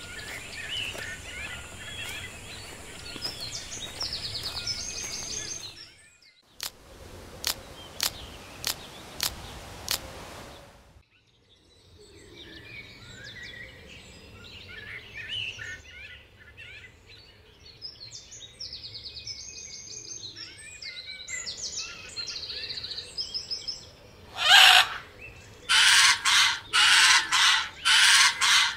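Jungle ambience of many small birds chirping. A few seconds in, the chirps give way to about six sharp clicks, then return. Near the end, a bird gives loud squawks, about six in quick succession.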